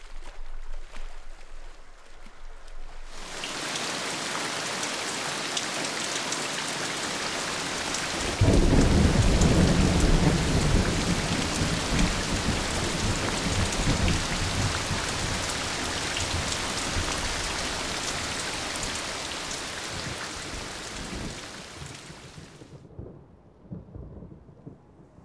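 Heavy rain pouring down, starting a few seconds in. About eight seconds in a loud thunderclap breaks out and rumbles on, slowly dying away under the rain. The rain cuts off suddenly near the end.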